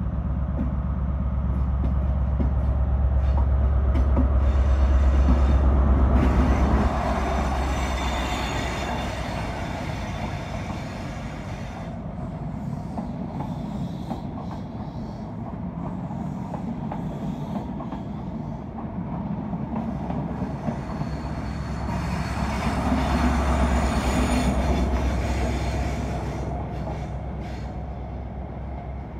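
CrossCountry HST passing through: the leading Class 43 power car's MTU diesel engine runs loudly and cuts away suddenly about seven seconds in. The Mark 3 coaches then roll by with high wheel squeal, and the rear power car's engine swells again a little past twenty seconds before fading away.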